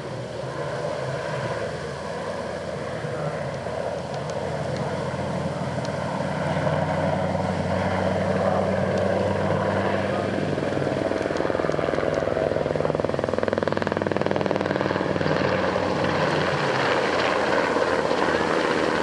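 NH90 military helicopter flying overhead: a steady sound of its four-blade main rotor and turbine engines that grows louder over the first several seconds and then holds steady.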